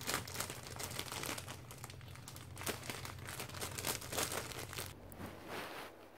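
Thin plastic bread bag crinkling and rustling irregularly as it is pawed and handled, stopping near the end.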